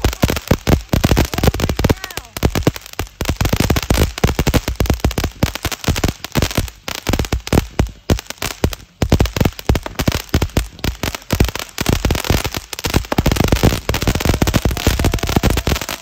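Phantom Storm Runner firework fountain going off: a dense, continuous run of rapid cracks and pops, with a few short lulls in the middle.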